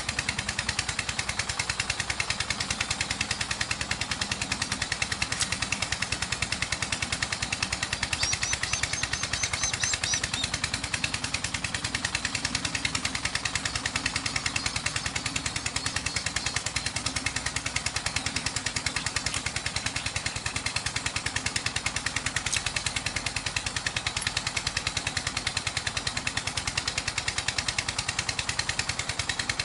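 A small engine running steadily, with a fast, even pulse. A brief high chirping sounds about eight seconds in.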